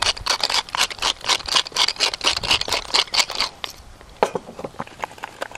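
Pepper mill grinding black pepper: a rapid run of crunching clicks that stops about three and a half seconds in, followed by a few scattered clicks.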